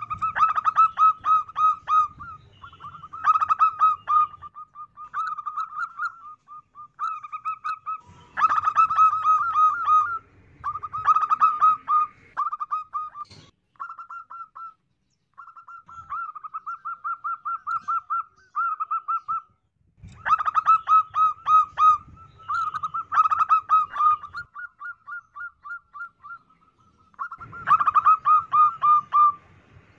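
Female zebra dove calling: phrase after phrase of rapid, staccato cooing notes run together into trills, with brief pauses between phrases.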